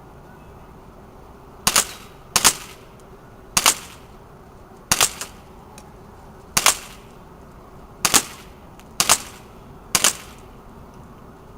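HFC M190 gas blowback airsoft pistol (Beretta M92 FS replica) firing eight single shots at a steady pace, roughly one a second, with a sharp pop and a quick clack on each shot.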